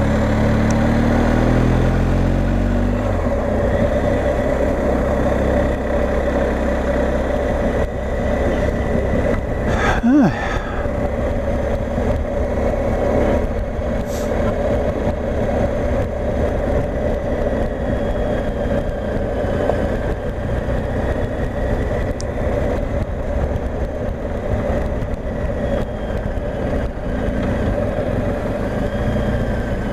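Motorcycle engine, the boxer twin of a BMW R 1250 GSA, running on the move. Its pitch rises over the first few seconds, then it runs steadily under a constant rush of wind and road noise, with one short louder blip about ten seconds in.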